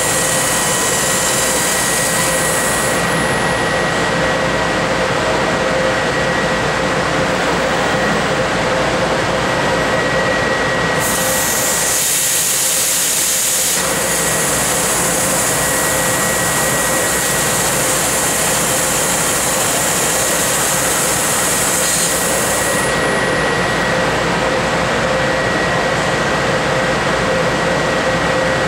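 Tanaka 6 kW laser cutting machine cutting quarter-inch mild steel plate: a loud, steady mechanical noise with two steady whining tones. Over it, a high gas hiss cuts out about three seconds in, returns about eleven seconds in, and cuts out again about six seconds before the end.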